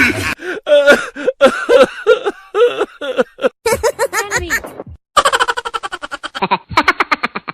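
Comic laughter sound effect: a voice giggling in short syllables that bend up and down, then a fast run of short, evenly repeated laugh pulses from about five seconds in.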